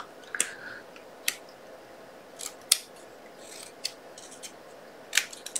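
Scissors snipping paper or cardstock: a handful of short, sharp snips at uneven intervals.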